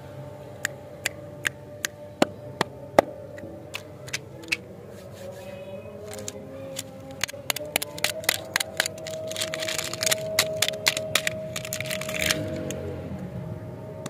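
Thin plastic wrapper crinkling and crackling as it is peeled off an egg-shaped lollipop capsule, densest in the second half. A row of separate sharp clicks comes first, and soft background music runs under it all.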